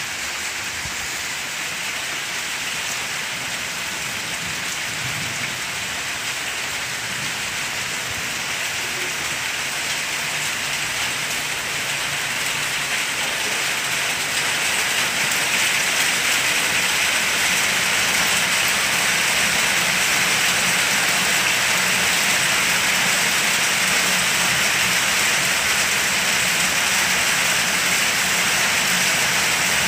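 Steady rain falling, growing louder about halfway through and then holding steady.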